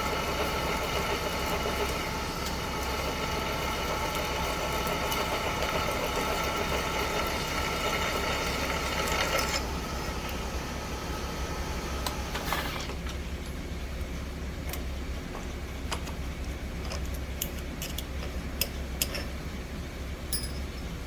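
Milling machine spindle running at slow speed, drilling a half-inch hole in a steel fixture, a steady whine of several tones over a low hum. The whine cuts off about ten seconds in and drops again near thirteen seconds, leaving the low hum and scattered light clicks.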